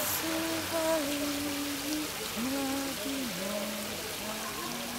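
Fountain water splashing steadily, with a woman's voice humming a slow wordless melody in long held notes that slide between pitches.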